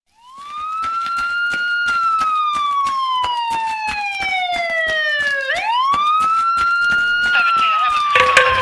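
Siren wail in a song's intro: the pitch sweeps up, falls slowly for a few seconds, then sweeps up and falls again, over a quick ticking beat. Drums and bass come in near the end.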